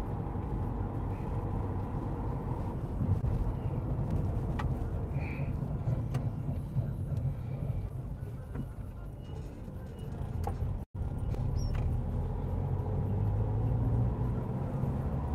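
Road and engine noise inside a moving car's cabin: a steady low rumble, with a split-second dropout of all sound about eleven seconds in.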